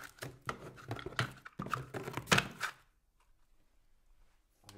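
Firework fountain tubes and plastic stands knocking against each other and the cardboard box as they are handled and lifted out. A run of knocks and clicks, the loudest about two seconds in, stops about three seconds in.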